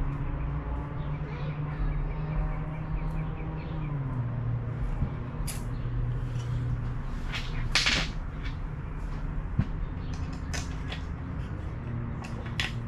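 Clicks, knocks and a scrape of hand tools and metal parts being handled on the quad, with the loudest scrape about eight seconds in, over a steady low hum that drops a little in pitch about four seconds in.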